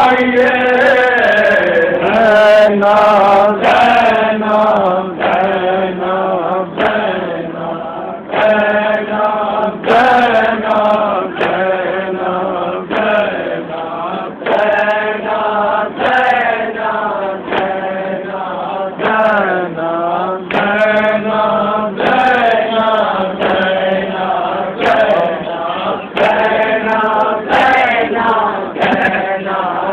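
A group of men chanting a noha, a Shia mourning lament, in unison behind a lead reciter. The singing is kept to a steady beat of matam chest-beating strokes, a little more than one a second.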